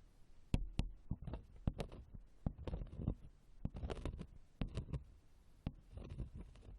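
Ear-cleaning ASMR: an ear pick scraping and tapping close to the microphone, making irregular short scratches and clicks several times a second.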